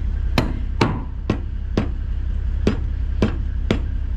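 Rubber mallet knocking on the steel lock linkage of a dump truck pup trailer's reach, eight sharp knocks about two a second with a short pause partway through, over a steady low hum. The air-operated lock isn't opening completely, and the rubber mallet isn't enough to free it.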